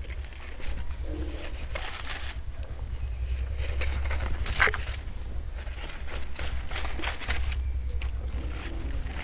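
Aluminium foil crinkling and charred banana leaves tearing as a foil-wrapped leaf parcel is pulled open by hand and with a knife: irregular rustles and scrapes, with one sharper crackle about halfway through.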